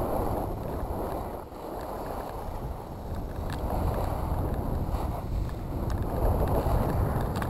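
Skis sliding and scraping over packed snow, the hiss swelling and fading with each turn, over wind rumbling on the microphone.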